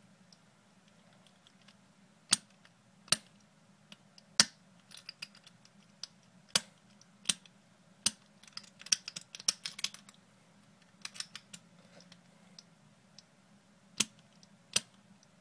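Bump key being struck in the keyway of an American 5100-series padlock: sharp metallic taps about once a second, with a quicker run of lighter clicks and rattling near the middle. The lock does not open.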